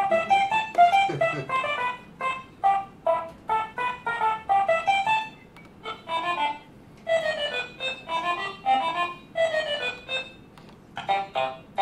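Apple II-generated 8-bit music from DMS synthesizer software: a tune of short, clipped pitched notes, several a second, with brief pauses about six seconds in and again near the end.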